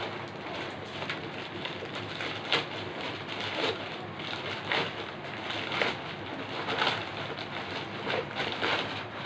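Plastic packaging being handled and unwrapped, crinkling and rustling, with sharper crackles about once a second.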